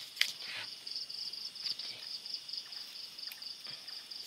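Night insects chirping, a steady high-pitched pulsing trill. A sharp click sounds just after the start.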